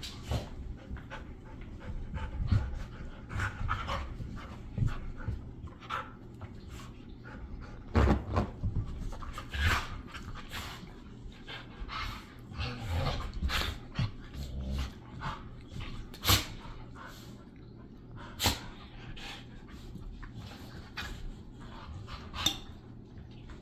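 Two huskies play-wrestling: panting and short dog noises, with many sharp knocks and scuffles as they tussle on a couch.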